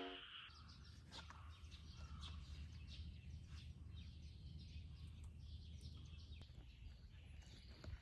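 Faint outdoor ambience: many short, scattered high chirps and ticks over a low steady hum.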